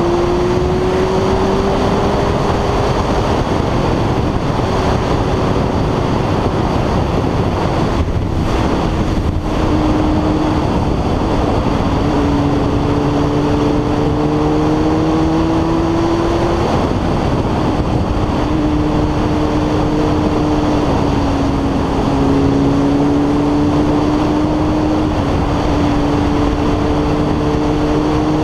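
Sport motorcycle engine running at road speed. Its note climbs slowly and drops back several times, under heavy wind noise on the microphone.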